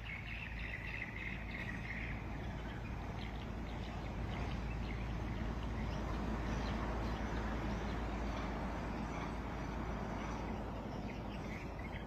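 Steady outdoor background noise with faint, scattered bird chirps, and a high held call in the first two seconds.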